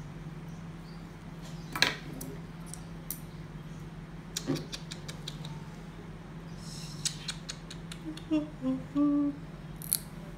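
A steady low electrical hum, with scattered sharp clicks and a few short low-pitched sounds about eight to nine seconds in.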